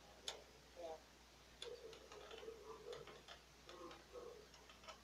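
Faint, scattered clicks and taps of a screwdriver and fingers against the plastic parts of an HP OfficeJet 4500 inkjet printer being taken apart. The sharpest click comes just after the start and another at about a second and a half.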